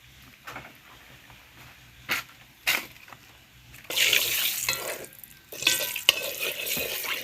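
Curry sizzling loudly in hot oil in a cooking pot, starting suddenly about four seconds in, with stirring clicks against the pot: the curry is being burnt in the oil before the chicken goes in. Two sharp knocks come before it.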